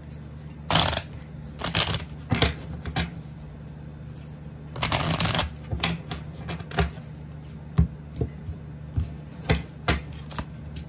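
A deck of tarot cards being shuffled by hand: several brisk rustling shuffles, the longest about five seconds in, then a run of short sharp clicks as the cards are knocked together and squared.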